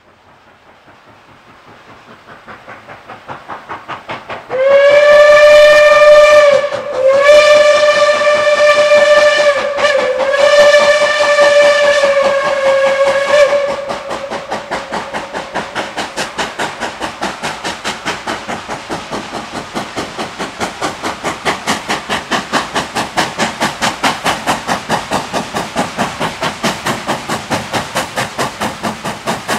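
Reading T-1 class 4-8-4 steam locomotive 2102 working toward the listener, its exhaust beats quick, even and growing louder. About four seconds in the whistle sounds three long blasts, the loudest thing here. The exhaust beats carry on hard after the blasts.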